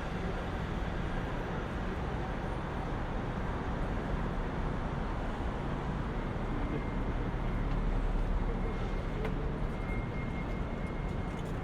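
City side-street traffic ambience: a steady rumble of idling and passing vehicles. The low rumble swells as a heavier vehicle goes by a little past the middle. A faint thin high tone sounds in the second half.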